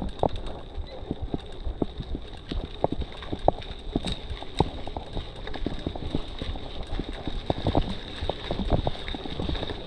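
Mountain bike rolling slowly over a rough dirt street, with irregular clicks and knocks as the tyres and bike jolt over the ruts, under a low rumble.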